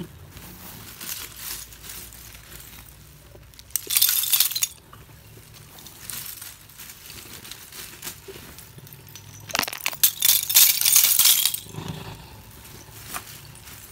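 Dry, brittle roasted multani mitti (fuller's earth) shards clinking and rattling against one another as the heap is stirred and shifted. There are two louder bursts of clatter, about four and ten seconds in, with scattered light clicks between.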